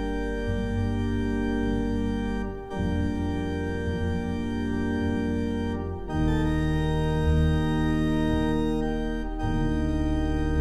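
Background music of slow, held chords that change about every three seconds.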